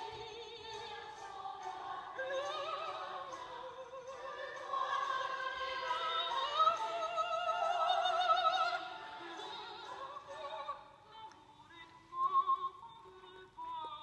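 A woman singing in an operatic style with a wide vibrato, holding long high notes that are loudest in the middle, then breaking into shorter, quieter phrases near the end.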